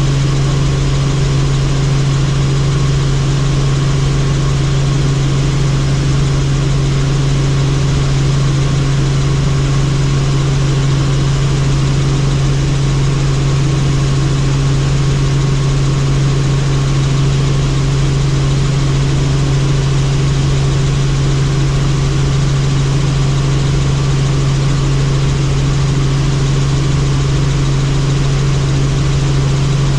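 Helicopter in flight, heard from on board: a loud, steady drone with a strong low hum and a few fainter higher tones that do not change.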